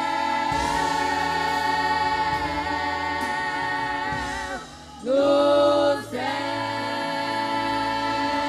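Women's vocal ensemble singing a gospel worship song in long held notes, with a short break about five seconds in before the next sustained chord.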